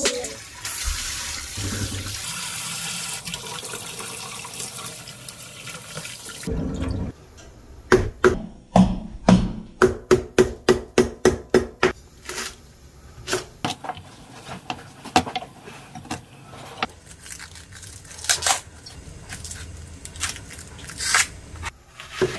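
Water running from a tap for about the first six seconds, then a chef's knife chopping on a wooden cutting board: quick, even cuts through lemongrass at about three to four a second, then slower, irregular cuts into a red onion.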